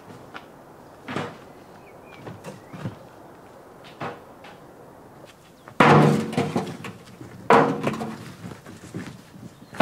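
A metal wheelbarrow being loaded during site clearing. A few faint knocks come first, then two loud clanks that ring on briefly, the first about six seconds in and the second a second and a half later.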